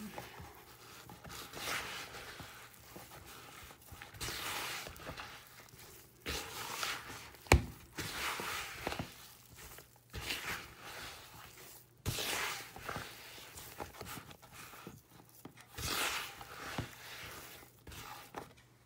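Hands kneading crumbly cookie dough in a bowl: uneven squishing and rubbing strokes every second or two, with one sharp knock about seven and a half seconds in.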